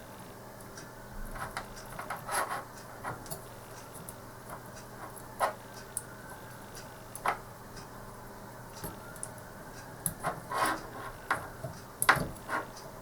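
Irregular small clicks, taps and rubbing from hands working heat-shrink tubing over soldered wire joints on a connector, about a dozen short handling noises scattered through, with a faint steady hum beneath.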